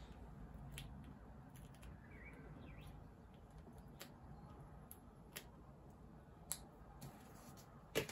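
Faint, sparse small clicks and ticks in a quiet room as foam adhesive dimensionals are peeled off their backing sheet by hand, with a faint chirp-like squeak a couple of seconds in.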